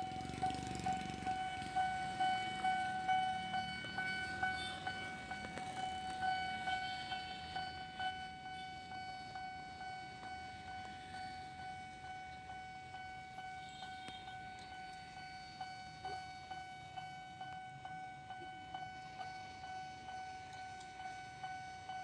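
Railway level-crossing warning bell ringing in a steady, even rhythm of about two strokes a second, signalling that a train is approaching the crossing. It grows a little softer after about eight seconds.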